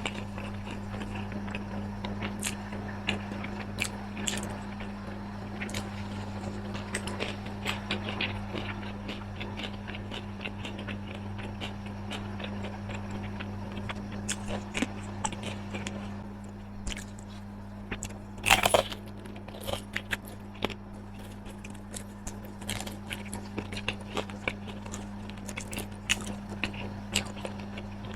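A person chewing and crunching food up close to the microphone, with a cluster of louder crunches about two-thirds of the way through. A steady low hum runs underneath.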